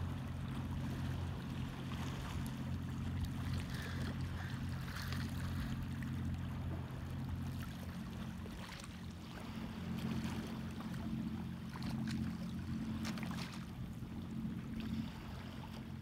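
Shallow sea water lapping and splashing around rocks at the shore, with a few short splashes near the middle and a steady low rumble underneath.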